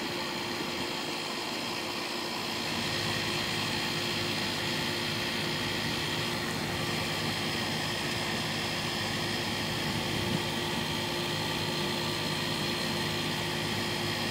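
Steady hum of a running machine, holding several constant tones; it gets slightly louder about three seconds in.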